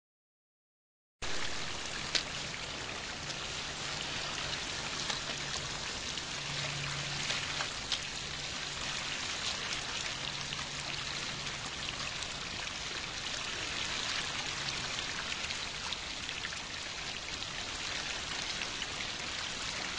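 Stream water running steadily, starting about a second in, with a couple of faint knocks.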